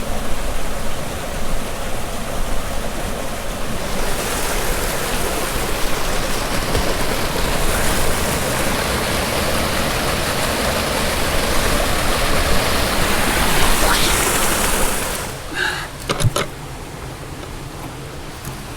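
Steady rush of a waterfall's falling water, dropping away sharply about fifteen seconds in, followed by a few light knocks.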